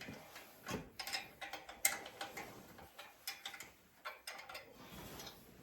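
Irregular metallic clicks and clanks of hands and tools working an accessory drive belt onto the rear groove of an engine pulley.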